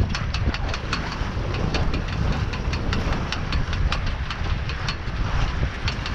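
A halyard slapping against the O'Day 20's mast: a quick, irregular clatter of sharp taps, several a second, over a steady low rumble. It is only a loose halyard, not a fault in the boat.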